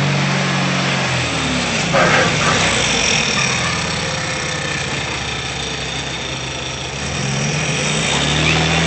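Car engine running steadily; its note fades away about a second in and comes back strong near the end, with a short burst of noise about two seconds in.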